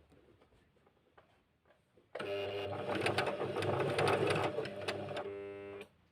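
Small portable electric sewing machine running and stitching rapidly for about three and a half seconds, starting suddenly. It ends in a smoother motor whir that stops abruptly.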